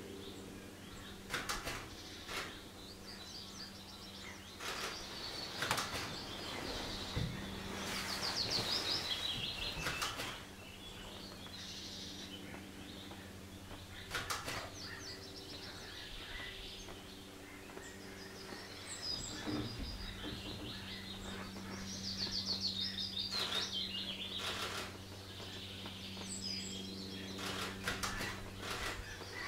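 Small songbirds singing in the background: two fast trilled phrases that fall in pitch, one about a quarter of the way in and another about three-quarters in, with other scattered high chirps. Under them runs a low steady hum, with a few short knocks.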